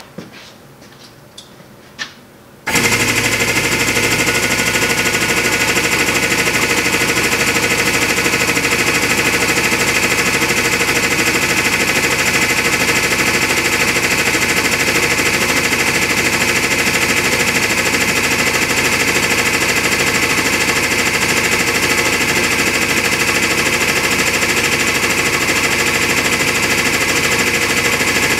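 Hydraulic press's pump motor switching on a few seconds in and then running loud and steady with a fast chattering rattle while the ram descends; a few light clicks come before it starts.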